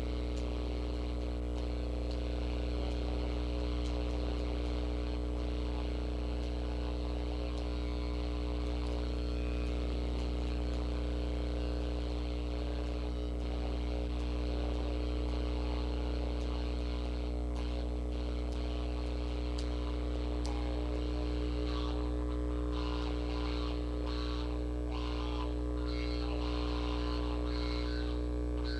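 Electric guitar being played under a loud, steady electrical hum and buzz.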